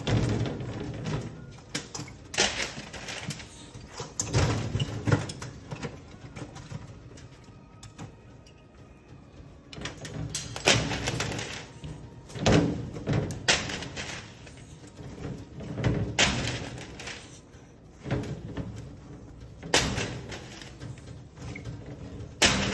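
A Moluccan cockatoo flinging and batting a plush toy around its cage: a string of irregular thumps and rattles against the perch and wire bars, with a quieter lull partway through.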